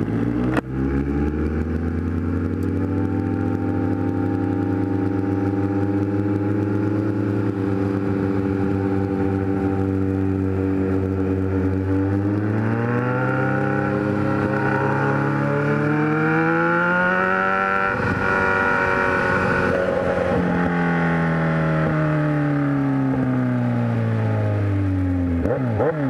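Kawasaki Z1000 inline-four engine running at a steady cruising pitch, then rising as it accelerates from about halfway and falling away as it slows over the last third. A single sharp knock comes shortly after the start.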